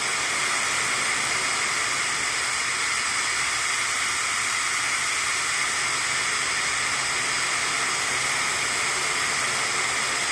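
High-speed electric hair dryer running steadily, a constant rush of blown air with faint steady high tones in it.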